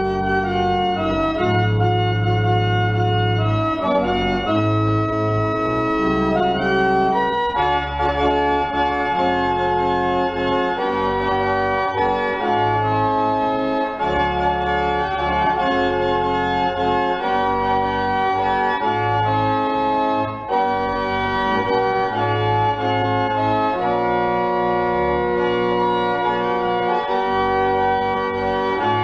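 Pipe organ playing in sustained full chords, with long low pedal bass notes changing every second or two underneath.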